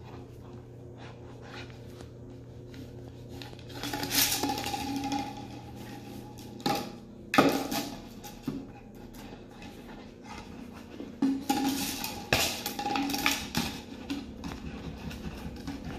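Plastic vitamin bottle clattering and scraping on a tile floor as an Akita puppy pushes and bites at it. It comes in irregular bursts of knocks and scrapes, the loudest about four, seven and twelve seconds in.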